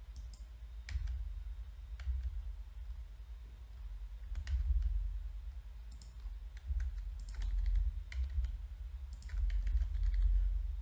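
Scattered clicks of a computer keyboard and mouse, with mouse-wheel scrolling, over a low rumble.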